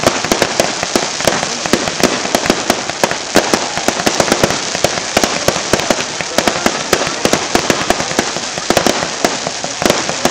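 Fireworks display going off in quick succession: a dense, continuous crackle of many sharp bangs each second.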